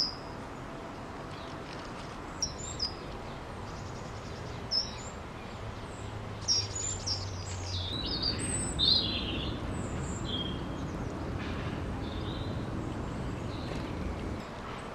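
Small garden birds calling: scattered short, high chirps and brief trills, the loudest a little after the middle, over a steady low background hum.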